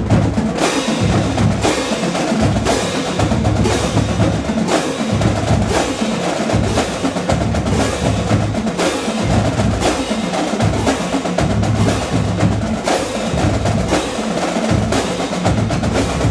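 Marching drumline playing a fast cadence: marching snare drums with crisp rimshot-like clicks over a line of pitched bass drums passing the notes between them, with cymbal crashes on the accents.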